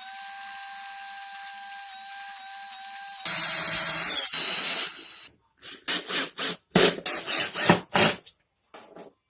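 A small electric power tool whines steadily for about three seconds. Then comes about two seconds of louder rough grinding noise, as if it is working into wood. After a brief stop there is a run of roughly eight short, irregular scraping strokes.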